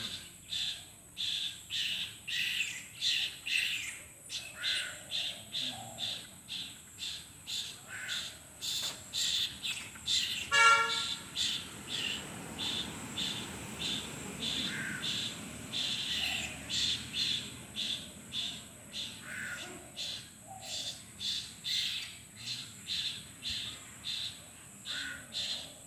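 Asian koel fledgling begging while being fed by a common myna: short, high, insistent calls repeated about twice a second. About eleven seconds in, a brief honk, the loudest sound, cuts across them.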